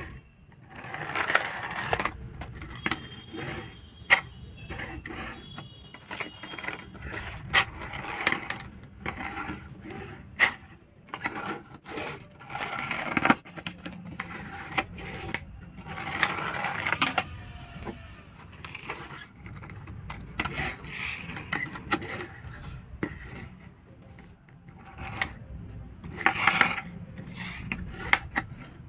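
Small plastic toy cars being pushed and rolled by hand across a wooden tabletop: short rasping whirs of the wheels and toy motors, with many sharp plastic clicks and knocks as the cars are handled and set down.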